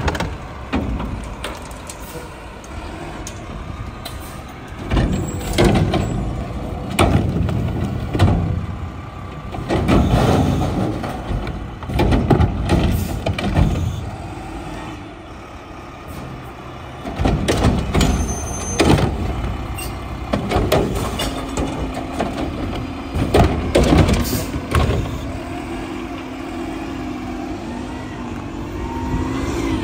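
Mack LR garbage truck with a McNeilus Atlantic front loader and Curotto-Can automated arm at work: diesel engine and hydraulics running, with repeated bangs and clanks as the can is dumped and lowered and a cart is set down. During the last third the engine holds a steadier, higher drone.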